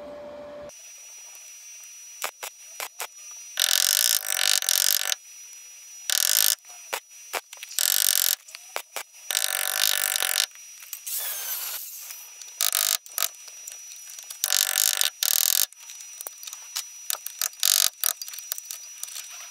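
MIG welder tack-welding a steel patch panel into a car's A-pillar: a series of short crackling bursts, each up to about a second and a half long, with sharp hammer taps between them.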